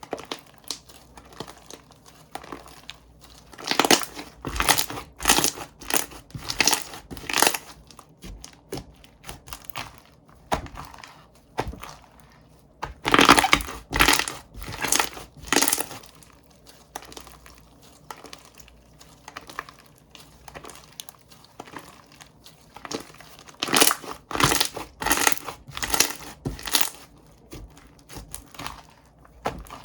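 Slime being squished, pressed and poked by hand, making sharp clicks and pops. These come in three louder spells, about 4, 13 and 24 seconds in, with softer crackling between.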